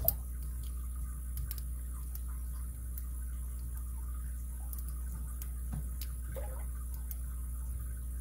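Faint, scattered clicks of a lock pick working the pin stack of a Master Lock M15 padlock held under tension, with a sharper click right at the start, over a steady low hum.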